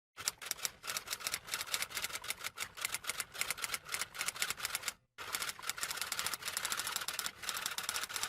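Typing sound effect: a fast, steady run of keystroke clicks, breaking off briefly about five seconds in and then carrying on.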